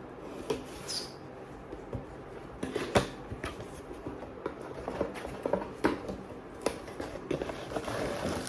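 Packaging of a boxed anime figure being handled and opened: scattered rustles, taps and clicks, the sharpest about three seconds in.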